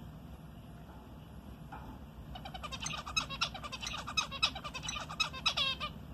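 Pet zebra finch singing. About two seconds in it starts a fast string of short chirps and clicks that runs for about three and a half seconds.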